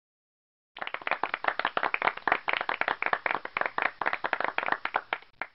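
Recorded applause sound effect: a small group clapping quickly and unevenly. It starts suddenly about a second in and cuts off near the end. It is played as the quiz's correct answer is shown.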